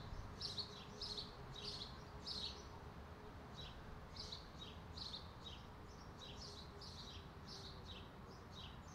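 A small songbird chirping over and over, short high chirps that fall in pitch, about two a second, with a brief pause about a third of the way in.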